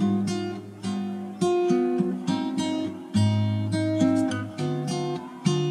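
Background music on acoustic guitar: chords strummed and plucked about once a second, each ringing out and fading before the next.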